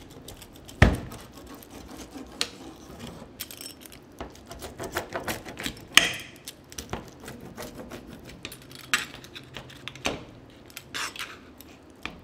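Pizza cutter wheel rolling and scraping across a metal pizza pan as it slices through a crispy chicken-crust pizza. Sharp clanks of the cutter against the pan come about a second in and again near the middle.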